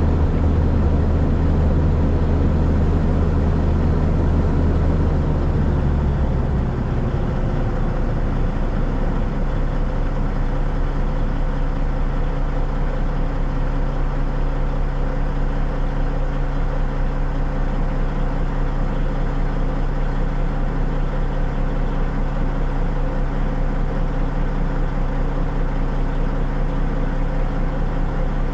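Narrow-gauge steam locomotive, heard from the cab, coming to a stand: a strong low rumble fades about six seconds in. A steady mechanical hum with a fast, even pulse carries on while it stands.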